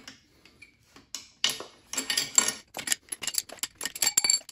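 Long steel cylinder head bolts being pulled out of a Ford 4.6L four-valve DOHC engine and clinking against one another in the hand: a quick run of metallic clinks and rattles starting about a second in.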